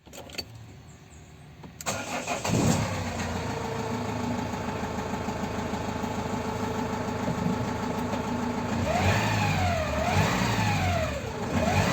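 A Renault Master's 2.5 dCi (G9U) four-cylinder turbodiesel cranks and catches about two seconds in, then idles steadily. Near the end it is revved in about three short blips, the pitch rising and falling each time. The van's no-start fault had been traced to an open-circuit crankshaft position sensor.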